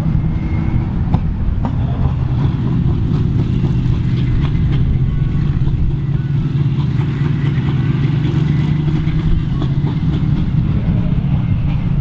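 Volvo BM 810 Turbo tractor's turbocharged diesel engine running steadily at an even pitch, pulling a mounted plough.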